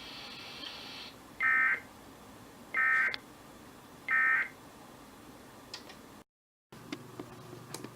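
Three short bursts of NOAA Weather Radio SAME data tones, about a second and a third apart. Short bursts like these after a message mark the end of the alert. The audio then cuts out for a moment and returns with a low hum and faint clicks.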